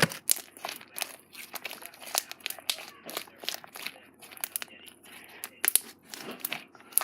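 Slime being mixed and squished by hand, giving irregular sticky pops and crackles, several a second.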